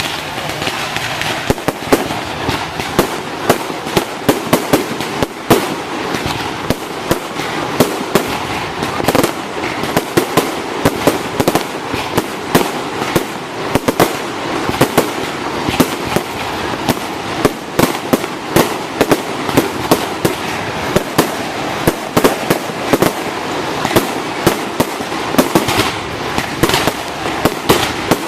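Fireworks display in full swing: rapid, irregular bangs and pops, several a second, over a continuous noisy background.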